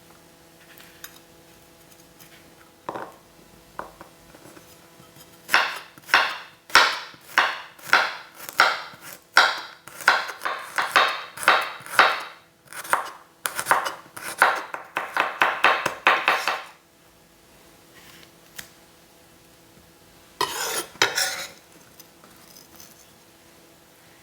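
Kitchen utensil working food, with repeated sharp strokes at about two a second for some ten seconds and two more strokes near the end, over a faint steady hum.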